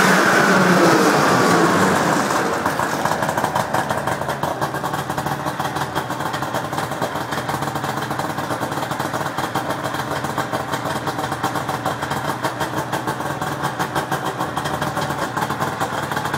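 1998 Arctic Cat Jag 440 snowmobile's two-stroke twin engine coming down off a rev, its pitch falling over the first two seconds, then settling into a steady idle with a fast, even pulse. It idles smoothly after a carburettor cleaning: the owner says it is running great now.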